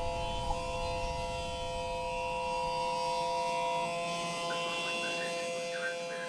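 Electronic emergency alert tone: several steady pitches held together over a low rumble. The highest pitch drops out a little before four seconds in, and faint flickering chirps come in about half a second later.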